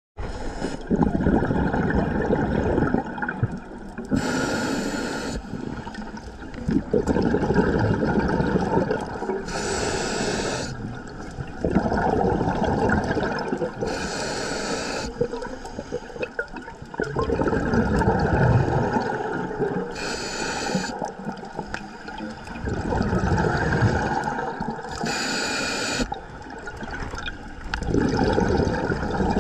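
Scuba diver breathing through a regulator underwater. A short hissing inhale comes about every five seconds, five times in all, and each is followed by a long, loud rush of bubbling exhaust bubbles.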